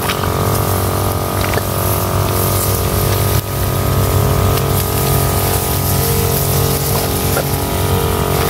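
Small engine of a power sprayer running at a steady speed, with the hiss of spray over it, while fungicide and nutrient are sprayed onto rice.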